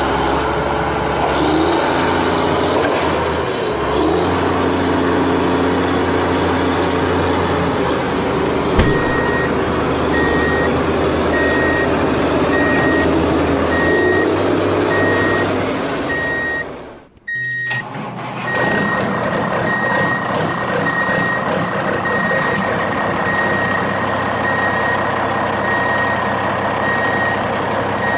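Truck engine running steadily, joined about nine seconds in by a reversing alarm beeping evenly at one high pitch. The sound drops out briefly a little past the middle, then engine and beeping carry on.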